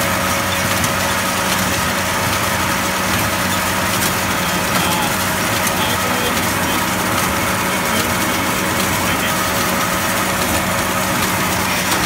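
International Harvester 86 Hydro tractor's engine running steadily under baling work, with a continuous hiss of machinery over it.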